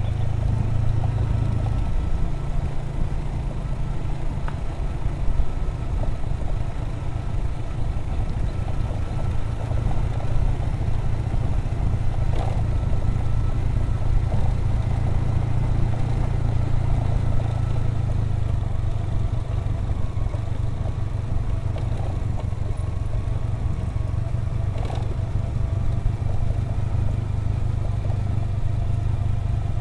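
Motorcycle engine running at a steady cruise with a low, even drone, heard from the rider's seat along with road and wind noise.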